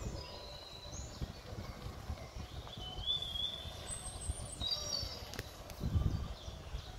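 Wind buffeting the microphone in uneven gusts, with birds chirping and whistling several times over it.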